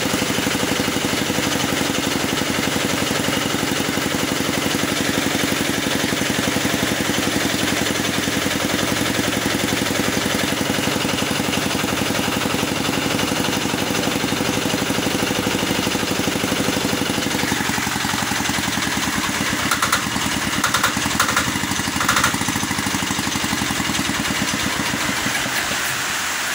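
Small single-cylinder diesel engine running steadily. About two-thirds through its sound changes, the low part thinning out, and a few sharp knocks come through.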